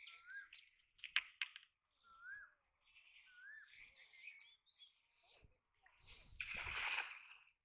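A bird calls repeatedly with short upward-sliding whistled notes, with a few sharp clicks a second in as the cast net is gathered. About six seconds in a loud rushing, splashing noise comes as the hand-thrown nylon cast net swings out and spreads onto the pond water.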